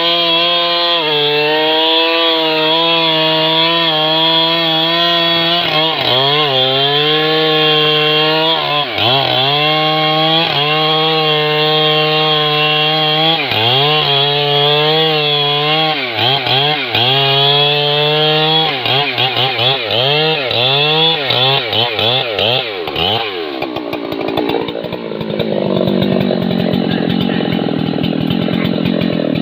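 Husqvarna 3120XP two-stroke chainsaw running at full throttle while cutting through a thick trunk. From about six seconds in, its pitch dips and recovers over and over as the chain bogs in the cut, the dips coming faster toward the end of the cut. Near the end the high revs drop away to a lower, rougher running.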